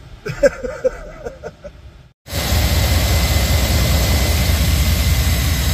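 Car engine idling steadily, cutting in abruptly about two seconds in after a moment of silence.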